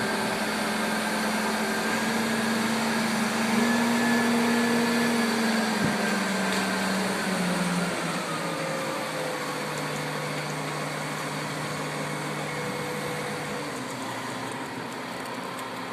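Engine of the crane lifting a sailboat, running steadily. It revs up about three and a half seconds in, then eases down to a lower, quieter speed about eight seconds in.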